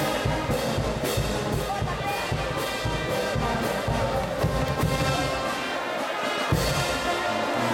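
Brass band playing a tune, with stacked brass tones over a regular drum beat, the low drum strokes dropping out briefly near the end.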